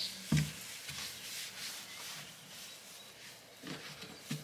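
Paper towel rubbing over a black plastic water tank as it is wiped dry, with a dull knock from the tank a moment in.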